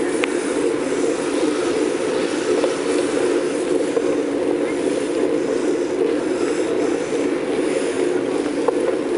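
Steady rolling noise of a bike riding along a paved street, a continuous even hum with a few faint ticks.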